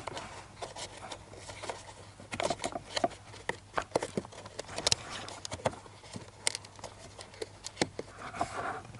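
Hands working at hard plastic clips and trim in a car's dash housing, making irregular clicks, taps and scrapes as the cabin filter cover is worked loose.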